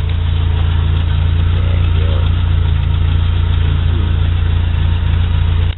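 Volkswagen Iltis's four-cylinder water-cooled engine idling steadily with a low, even hum, shortly after a cold start.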